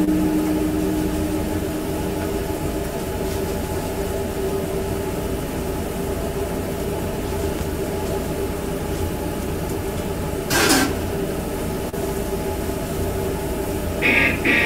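Steady machine hum of food-trailer kitchen equipment, a low rumble with a faint steady tone, broken about two-thirds through by a brief hissing burst.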